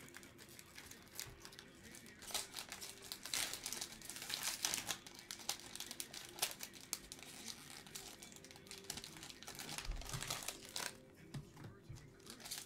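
Plastic wrappers of Panini Prizm basketball card packs crinkling and tearing as packs are ripped open and handled, in irregular bursts of crackling.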